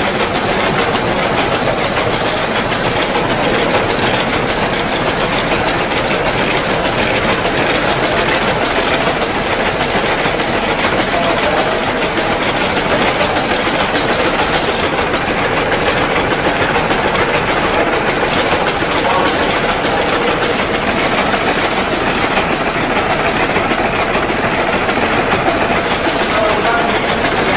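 Large vertical four-cylinder stationary gas engine running steadily, a continuous mechanical clatter.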